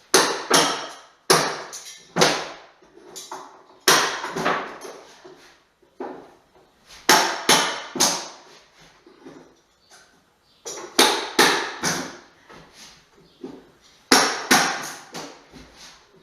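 Hammer blows on bare wood flooring, coming in quick groups of two to four strikes every couple of seconds.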